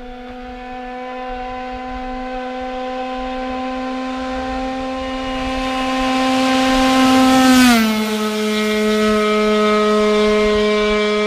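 Tuned two-stroke moped engine with a 100 cc Roost Havoc cylinder kit held at a high, steady pitch at full throttle, growing louder as it approaches. About eight seconds in the pitch drops sharply as it passes by, and it runs on at the lower pitch.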